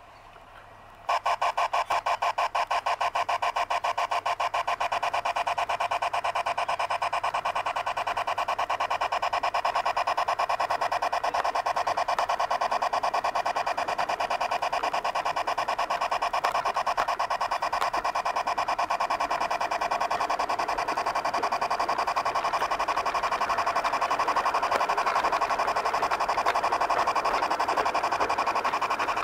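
Garden-scale model locomotive running, a fast, steady, even pulsing with a constant tone under it that starts abruptly about a second in and keeps the same pace.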